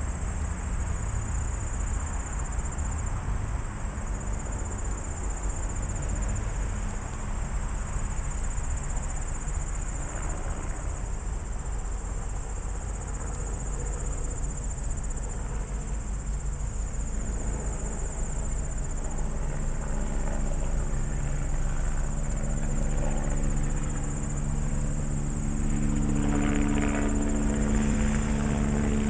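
Crickets and other insects chirping steadily. Through the second half the low drone of an approaching diesel locomotive, Ann Arbor Railroad 2368, builds and grows louder toward the end.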